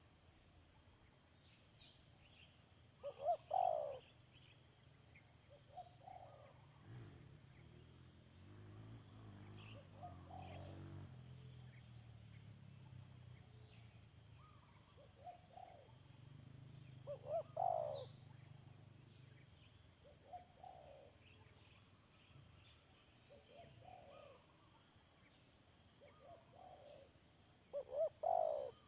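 Spotted doves cooing: three loud, close coo phrases spaced about ten seconds apart, with fainter coos in between.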